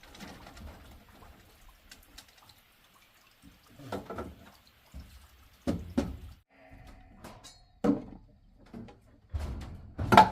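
Irregular splashes and drips of water with a few sharp knocks on wood, the loudest about eight seconds in.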